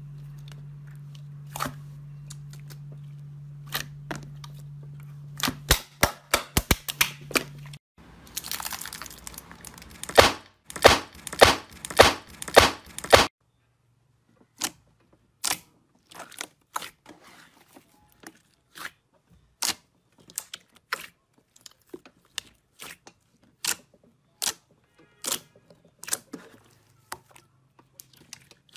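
Hands squeezing and poking slime, making a run of sharp clicks and pops. They come thick and loud in the middle, then sparser as fingers press into the slime. A steady low hum sits under the first several seconds.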